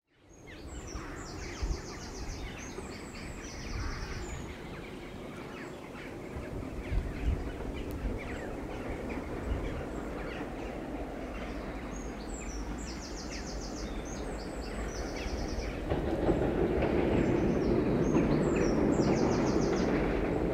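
Class 37 diesel locomotives' English Electric V12 engines heard approaching, a low rumble that grows louder about sixteen seconds in. A small bird sings the same short trilled phrase three times over it.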